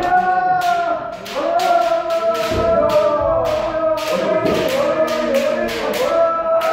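Many kendo practitioners shouting long, drawn-out kiai together, the voices overlapping, crossed by frequent sharp cracks of shinai strikes and foot stamps, several a second.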